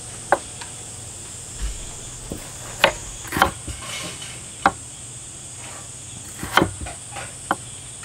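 Chef's knife slicing a peeled oriental melon thinly on a wooden cutting board: about half a dozen sharp knocks at uneven intervals as the blade comes down onto the board.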